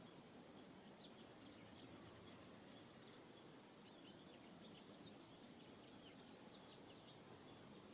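Faint, scattered short chirps from small songbirds over a quiet, steady outdoor hiss.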